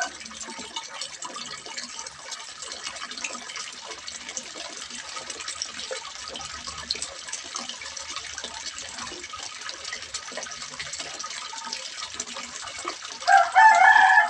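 Water splashing and trickling steadily into a small fish pond, with many small drips and splashes. A rooster crows loudly about a second before the end.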